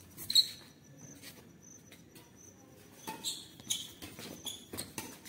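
Badminton rally sounds: sports shoes squeaking on the court, loudest about half a second in, and sharp clicks of rackets striking the shuttlecock, which come more often in the second half.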